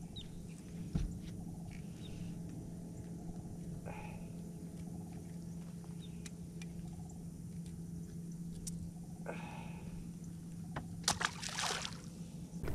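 Steady low hum of a bass boat's bow-mounted electric trolling motor. Over it come small clicks and light water sounds as a freshly caught largemouth bass is handled and unhooked, and a couple of short splashes near the end.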